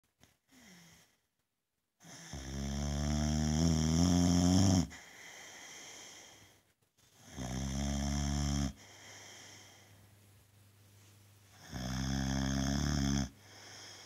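Boxer dog snoring loudly in its sleep: three long snores, the first about two and a half seconds and the longest, with quieter breaths in between.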